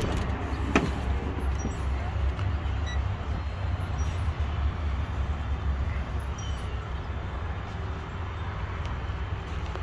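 Freightliner M2 truck's diesel engine idling with a steady low rumble, and a single sharp click about a second in.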